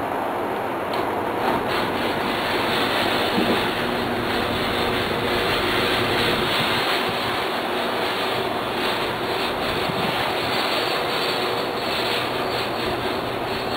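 Motorized roll-up shutter door of a garage running down, a steady mechanical noise with no clear pauses.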